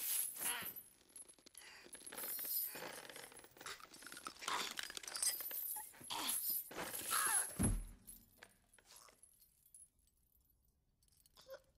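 Heavy metal chain rattling and clinking in a struggle, in irregular jangles, with a woman's strained, choked gasps. A single low thump a little before the eight-second mark.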